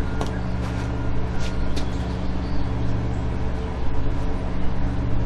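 Steady droning engine hum, even and unchanging, with a few light clicks over it.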